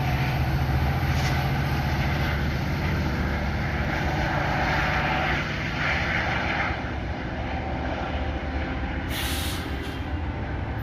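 Diesel-hauled passenger train pulling away from the station, its engine drone fading as it recedes, with a short hiss of air about nine seconds in.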